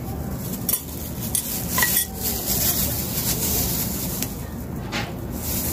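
Light clinks and rustling as a small glass bottle of sterilized grain is handled and turned in plastic-gloved hands, with a few sharp clicks, over a steady low hum.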